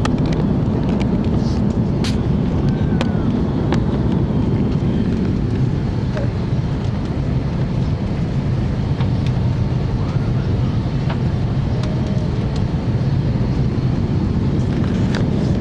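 Steady jet engine and airflow noise heard inside an airliner cabin, with a few faint clicks.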